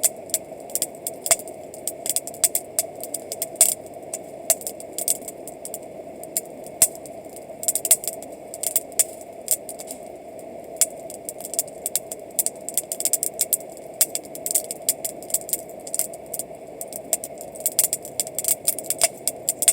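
Wood campfire crackling: irregular sharp snaps and pops, several a second at times, over a steady background noise.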